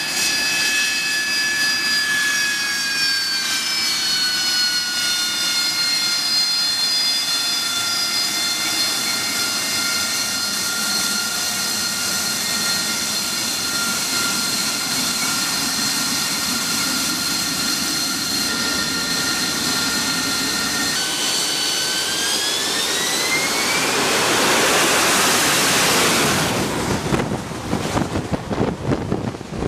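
AV-8B Harrier II jet engine whining steadily at low power, then about three-quarters of the way through its pitch rises as it spools up into a loud roar of takeoff thrust. Near the end the roar breaks up into gusty, rushing noise.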